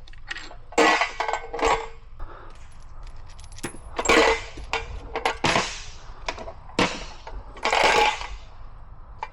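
Irregular metallic clinks and clanks of hand tools against steel parts, about nine sharp strikes with short ringing, while the differential's carrier bearing cap bolts are worked loose.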